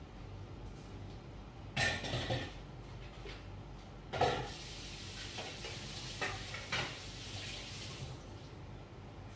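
Chicken and vegetables sizzling and steaming under the glass lid of a frying pan on a gas burner, with a hiss that swells from about four seconds in and fades near the end. A few short clatters, the loudest about two and four seconds in.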